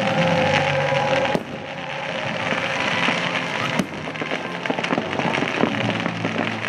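Aerial fireworks bursting and crackling, with a sharp report about a second and a half in and another near four seconds, over the show's soundtrack music.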